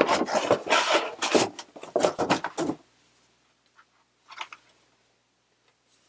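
Cardboard box being opened and a picture frame slid out of it: dense rustling and scraping of cardboard for nearly three seconds, then two faint knocks as the frame is handled.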